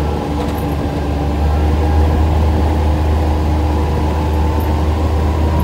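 Off-road vehicle's engine running steadily at driving speed, heard from aboard as a low, even drone with the rumble of the ride over a gravel track.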